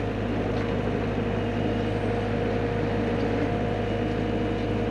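Hyundai HX85A excavator's diesel engine running steadily, heard from the operator's cab, with a steady whine above the low hum and no change in speed.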